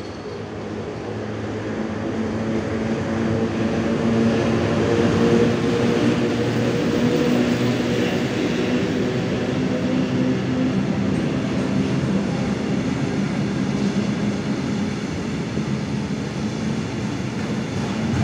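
An ET22 six-axle electric freight locomotive approaches and passes at speed, hauling a freight train of tank containers and covered wagons. Its steady hum grows louder over the first four or five seconds, then the rolling noise of the wagons runs on evenly.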